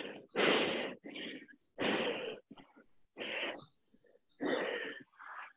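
A person breathing hard from exertion: a run of about seven short, heavy, rasping breaths with brief pauses between them.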